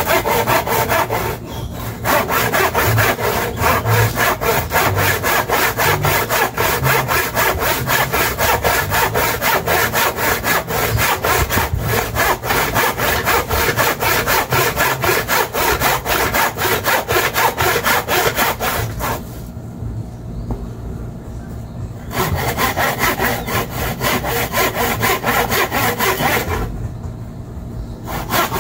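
Hand saw cutting through a wooden table leg in quick, steady back-and-forth strokes, pausing briefly about two-thirds of the way through and again near the end.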